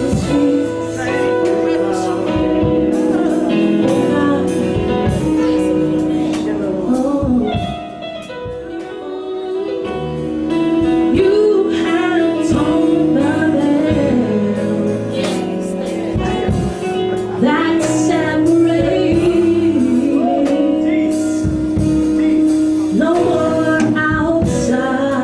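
Live gospel praise-and-worship music: voices singing over sustained chords, with a brief softer passage about eight seconds in.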